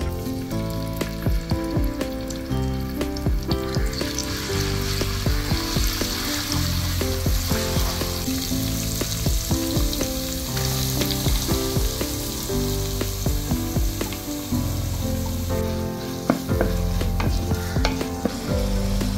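Crushed ginger-garlic and then chopped onions sizzling in hot oil in a clay pot, stirred with a spatula; the sizzle swells about four seconds in and dies down near the end. Background music with shifting notes plays throughout.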